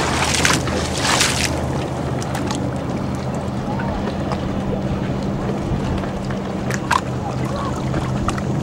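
Boat engine idling with a steady low hum, under wind and water noise. A few loud rushes of noise come in the first second and a half, and there is a brief sharp sound near the end.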